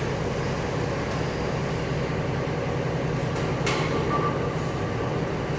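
Steady drone of running machinery with a low hum, with two sharp metallic clicks about three and a half seconds in.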